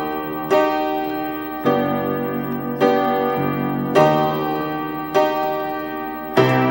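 Background music: a piano playing a slow series of chords, one struck a little more than once a second, each left to ring and die away.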